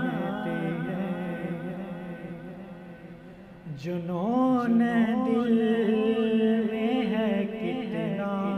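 A man's solo voice singing a naat in long, held, ornamented lines over a steady low drone. One phrase fades out about three seconds in and a new phrase begins just before four seconds.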